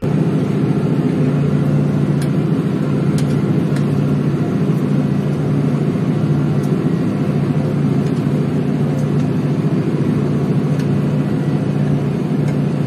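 Tractor engine running steadily at a constant pitch under the load of ploughing, loud and unchanging throughout.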